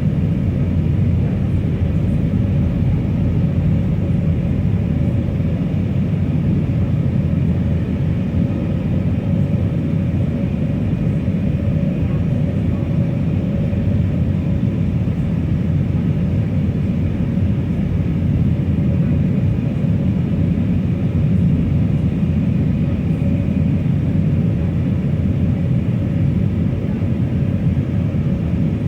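Steady cabin noise aboard an Airbus A319 airliner: a low rumble of engines and air with a faint steady whine over it, unchanging throughout.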